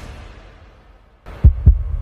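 Heartbeat sound effect: a low double thump about a second and a half in. Before it, the tail of a loud preceding sound dies away.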